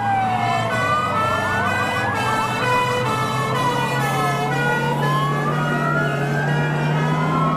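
Sirens of airport fire-rescue trucks wailing together, several tones rising and falling slowly out of step with one another, over the steady hum of the trucks' engines.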